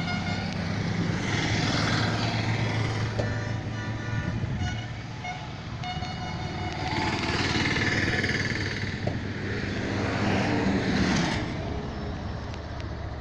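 Road traffic passing: vehicles swell and fade about two seconds in, around eight seconds and again near eleven seconds, over a steady low engine hum.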